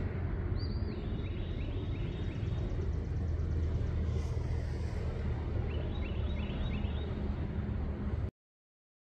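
Outdoor ambience: a steady low rumble with a low hum underneath, and a bird chirping in two quick runs of notes, about a second in and again around six seconds. The sound cuts off suddenly near the end.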